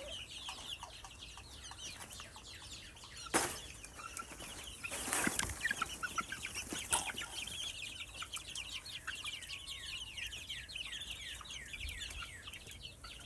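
Birds chirping rapidly and without pause, each chirp a short high call sliding down in pitch. A few sharp knocks or thumps come about three and a half, five and seven seconds in.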